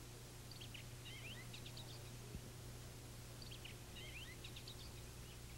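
A songbird singing a short phrase of quick, high chirping notes, twice, about three seconds apart, over a faint steady low hum: the quiet ambience of a suburban neighbourhood.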